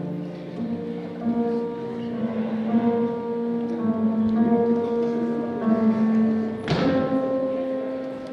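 Music with long held notes that shift slowly from one chord to the next. Near the end comes one sharp knock.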